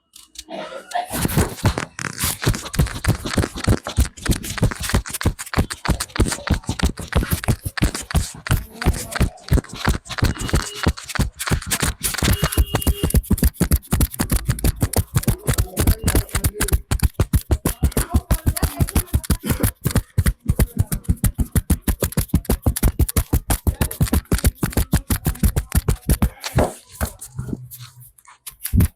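A barber's hands rapidly slapping and tapping on a customer's head and shoulders in a percussive massage, several sharp strikes a second in a quick, steady rhythm. It pauses briefly near the end.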